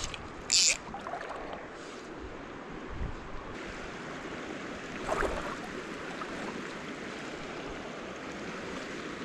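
Shallow, rocky creek water flowing and rippling steadily. There is a short, sharp hiss about half a second in, the loudest sound, and a softer burst about five seconds in.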